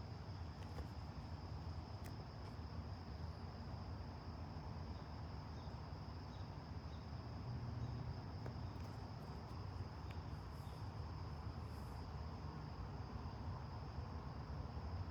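Steady chorus of crickets trilling, with a constant low rumble underneath.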